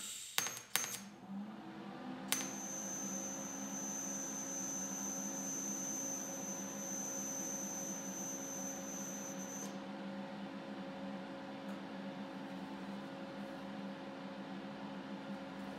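TIG welder switching on with a few clicks and a steady low hum. About two seconds in, the arc strikes with a steady high-pitched whine, held for about seven seconds while fusion-welding the stainless-steel wastegate flapper lever of a BMW N54 turbo, and then cuts off suddenly.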